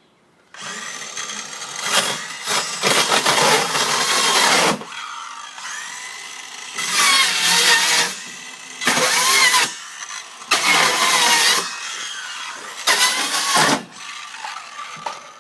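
A power tool like a drill, run in five bursts of about one to four seconds with its motor pitch wavering, and turning more quietly between bursts.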